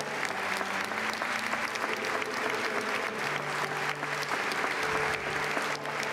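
Large audience applauding: steady, dense clapping filling a hall.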